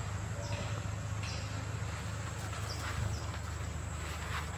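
Short scratchy rustles of dry leaves and scrapes on rock, about once a second, as a young macaque scrambles about, over a steady low hum.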